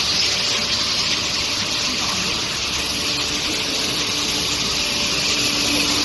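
Steel-bar induction quenching and tempering line running: a steady, even rush and hiss like water spraying, with a faint steady hum underneath.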